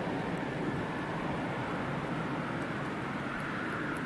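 Bombardier CRJ900ER's twin turbofan engines on final approach, a steady jet rumble as the aircraft moves away.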